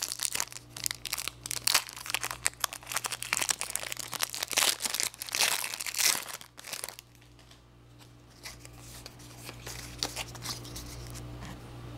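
Foil wrapper of a trading-card booster pack being torn open and crinkled: dense crackling for about seven seconds, then it goes quiet except for a low steady hum.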